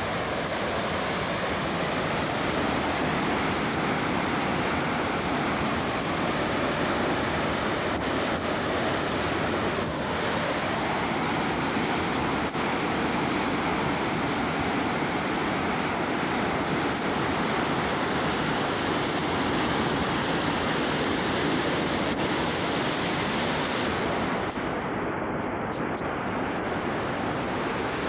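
Steady rush of a river in flood: fast, muddy high water pouring past bridge piers and churning against a pile of debris.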